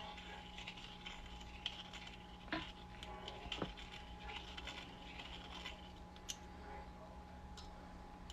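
Hand-held deburring tool scraping around the cut inner edge of a silver coin blank, taking off the sharp edge: faint scratching with a few light clicks.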